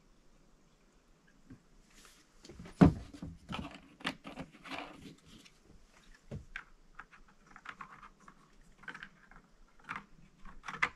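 Handling noises at a plastic chainsaw body and fuel bottle on a wooden table: a sharp knock about three seconds in, then scattered small clicks, rattles and knocks, typical of a fuel cap being worked and the bottle being put down after fuelling.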